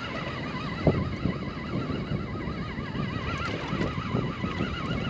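A steady high warbling tone, wavering in pitch a few times a second, over low background noise, with a short knock about a second in.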